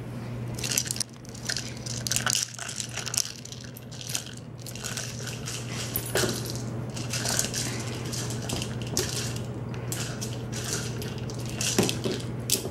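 Dry kibble rattling and clattering inside a plastic IQ treat ball as a Maltese puppy noses and rolls it, in irregular clicks throughout.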